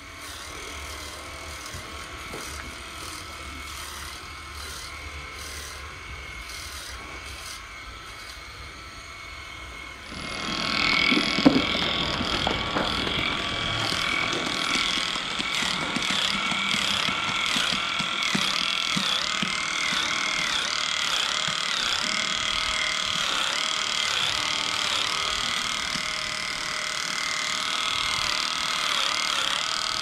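Cordless electric cattle clippers running with a steady high whine as they cut the hair of a cow's tail switch, the pitch wavering at times as the blades meet the hair. The clipper sound comes in loudly about ten seconds in, after a quieter low hum.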